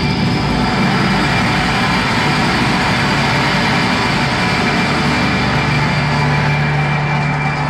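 A live rock band's closing wash of noise: guitars, bass and drums in a dense, steady roar, joined by a low held bass note and a large gong struck by the drummer near the end.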